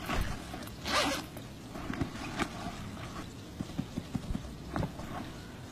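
A fabric school bag being handled and opened: brief swishes of cloth and a zip, and a few light clicks of its fittings.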